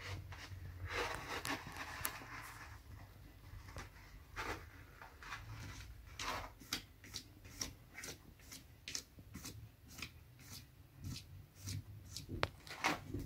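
A Persian cat's paws raking and scratching the litter in a plastic litter box, covering up after urinating: a longer scratchy rustle early on, then a steady run of short scratching strokes, about three a second, from about six seconds in.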